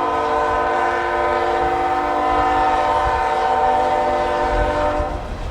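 Union Pacific locomotive air horn sounding one long steady blast, a chord of several tones, cutting off about five seconds in, over the low rumble of the slow-moving train.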